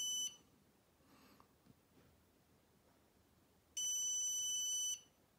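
Fulcrum Nemo IVMS vessel-tracking unit's built-in buzzer giving a steady, high-pitched bleep. The end of one bleep comes right at the start, and a second starts about four seconds in and lasts just over a second. The bleeps are set off by holding a magnet to the unit's activation mark, and the unit gives only these one-second bleeps, not the ten-second bleep its activation instructions describe.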